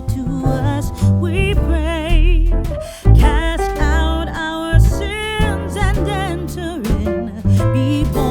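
Background music: a song with a vibrato singing voice over bass and a steady beat.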